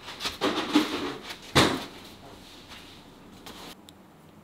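Knocks, clicks and scraping of objects being handled and set down on a table, the loudest knock about a second and a half in, then only a few faint ticks.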